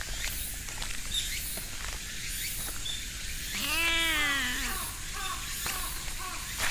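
A stray cat meowing once about halfway through: a single drawn-out call, about a second long, that rises and then falls in pitch.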